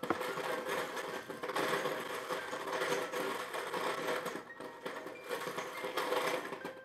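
A dense, continuous rattling clatter, like many small hard objects tumbling together, with its loudness rising and falling throughout, over faint background music.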